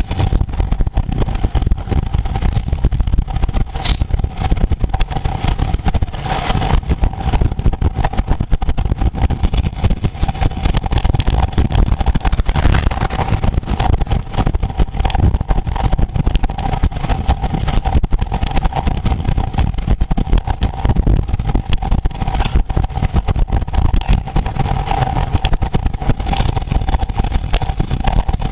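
Wind buffeting the microphone at riding speed: a loud, continuous low rumble that flutters constantly, with a steady thin hum held throughout.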